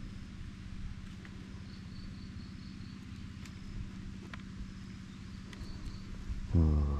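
Outdoor background with a steady low hum and small scattered clicks and rustles of hands picking through mole crickets in a woven bamboo tray, with a few faint high chirps. Near the end a loud, low-pitched call starts and carries on.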